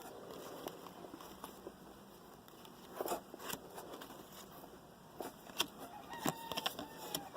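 Trading cards and card packs being handled: soft scattered rustles and clicks, with a few sharper ones between about three and six and a half seconds in.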